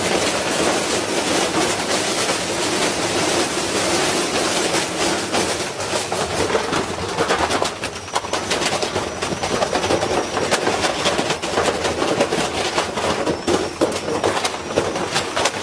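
Washing machine running with a brick loose in its drum: loud, continuous clattering and banging as the brick is flung around.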